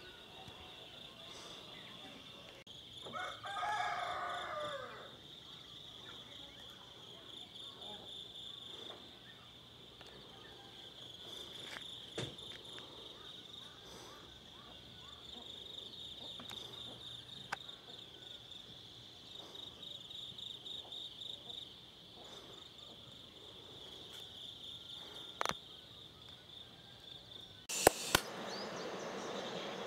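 Insects trill steadily in a fast, pulsing, high-pitched chorus. A rooster crows once about four seconds in. Near the end a sharp click is followed by a louder steady hiss.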